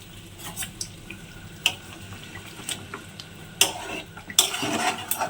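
A pot of curry being handled with a spoon: scattered light clicks and knocks, and a louder scraping stir over the last second.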